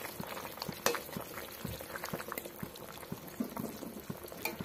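Curry of fish, potato and okra boiling in a metal pot: steady bubbling with many small pops, and a couple of sharper clicks about a second in and near the end.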